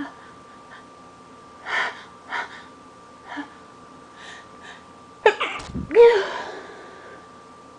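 A person's allergy sneeze: a few short, sharp gasping in-breaths as the sneeze builds, then a sudden stuttering burst a little after five seconds in and a loud, voiced sneeze about a second later that trails off.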